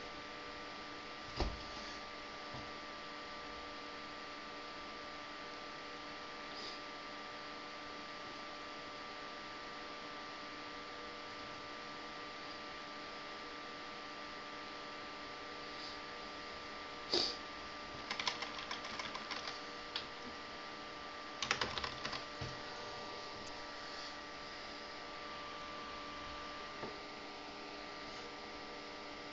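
Steady electrical hum with several high whining tones from a running desktop computer on an open test bench. A sharp click comes about a second in, and bursts of small clicks and crackling handling noise come around the middle.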